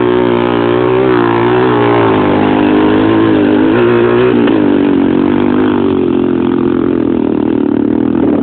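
Quad (ATV) engine running under throttle, the revs rising and falling unevenly, then settling lower about halfway through.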